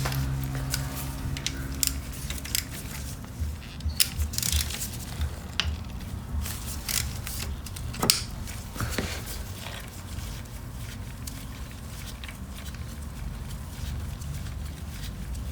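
Irregular clicks, taps and scrapes of hand tools being worked on a motorcycle's oil drain plug, densest in the first several seconds, over a low steady hum.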